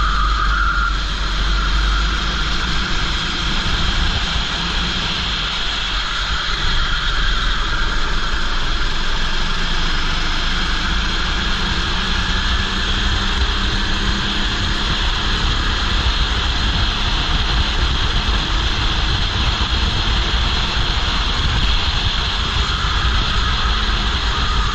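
Racing kart's engine running hard, its pitch rising and falling gently as the kart laps, heard from a helmet-mounted camera.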